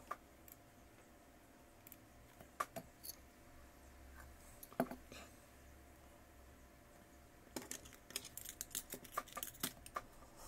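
Light clicks and taps of hands and small tools handling a tablet during a display replacement: a few single clicks spread out, then a quick run of clicks near the end.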